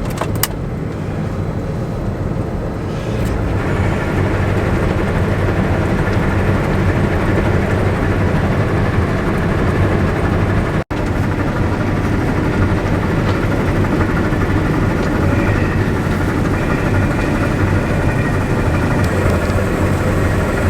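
Diesel farm machinery running steadily with a low drone. It gets louder about three and a half seconds in.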